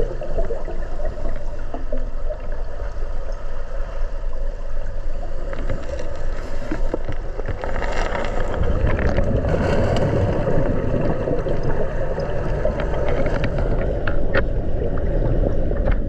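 Turbulent waterfall water churning a river plunge pool, heard underwater as a steady low rush. Clusters of crackling clicks come about midway and again near the end.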